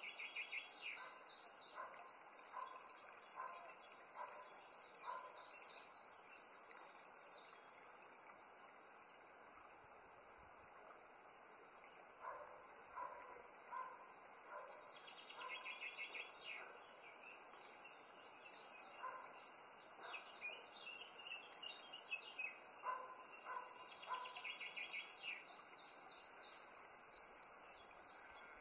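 Birdsong: rapid runs of short, high chirps in three bouts, with quieter stretches between them.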